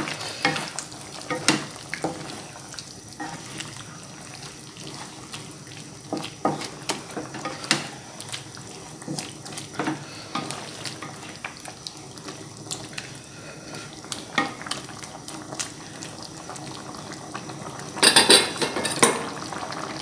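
Wooden spatula stirring a simmering curry in a nonstick wok, giving scattered knocks and scrapes against the pan over a steady bubbling. A louder clatter of utensils on the pan comes near the end.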